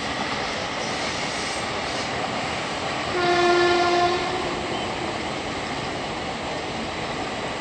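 Pragati Express passenger train running past with a steady running noise. A locomotive horn sounds once, a single held tone for about a second, about three seconds in.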